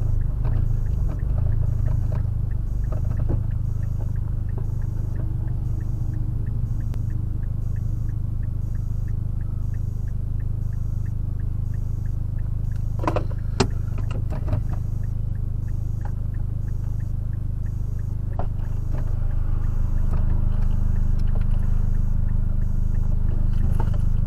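Mazdaspeed 3's turbocharged four-cylinder idling at a standstill, a steady low hum heard from inside the cabin, with a few sharp clicks about thirteen seconds in.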